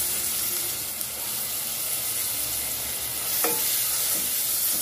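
Grated carrot and fried onion sizzling in hot mustard oil in an aluminium pan, stirred with a wooden spatula, with one brief knock about three and a half seconds in.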